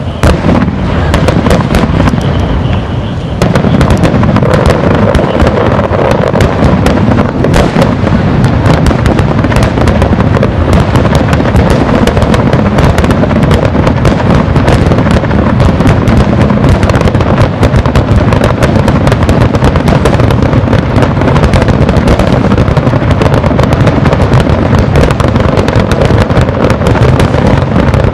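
Aerial firework shells bursting in a loud, rapid barrage of overlapping bangs. The barrage thickens into an almost unbroken run of explosions about three seconds in.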